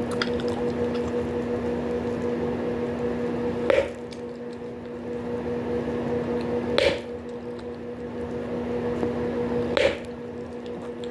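Bubblegum chewed with wet squishing, and three sharp bubble pops about three seconds apart. A steady low hum runs underneath.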